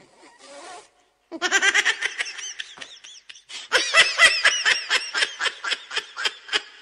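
Women laughing: short laughs from about a second in, then a long run of quick repeated laughs from about halfway.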